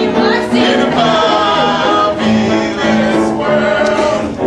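A group of voices singing a show tune in chorus, holding long notes, with music behind them.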